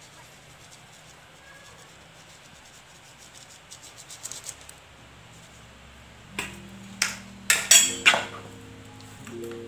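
Metal spoon scraping and tapping on a small plastic cup, with light ticks, then a few sharp knocks in the second half. Soft piano-like background music comes in about two-thirds of the way through.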